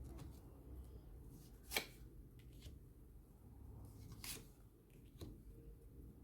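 Tarot cards being handled on a table in a quiet room: three soft clicks and taps, spread a second or two apart, over a faint hum.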